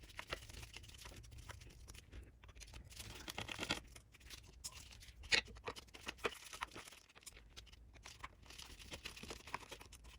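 Faint scattered clicks and scratches of small hand work: screws being backed out with a Phillips screwdriver and the plastic primer-bulb plate of a gas hedge trimmer being handled. One sharper click about five seconds in.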